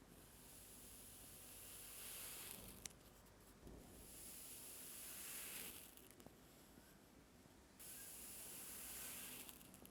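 Kinetic sand being sliced, three slow strokes in a row, each a soft hissing scrape that swells and then stops, with a sharp tick at the end of the first.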